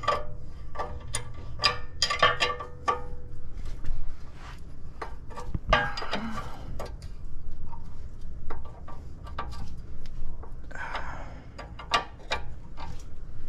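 A 19 mm wrench clicking and clanking against the castle nut of a new lower ball joint as the nut is tightened down, in irregular runs of sharp metallic ticks, with brief rustling of hands and tools in between.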